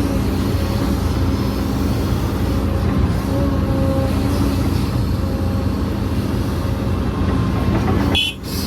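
Heavy diesel construction machinery running steadily with a low, continuous engine rumble, cut off briefly near the end.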